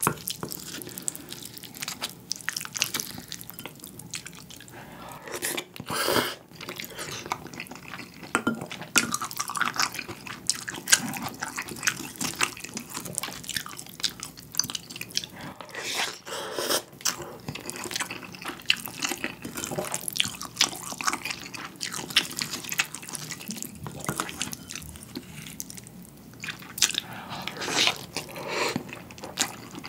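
Close-miked mukbang eating sounds: a plastic spoon stirring and scraping budae jjigae mixed with butter and seaweed flakes in a bowl, then wet chewing of the stew and noodles, in a steady string of short clicks and squelches.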